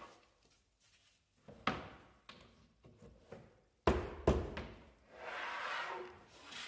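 Wooden board panels being handled on a workbench: a few knocks and thuds, the two loudest close together a little past the middle, then a scraping rustle as a panel slides across the bench and is lifted.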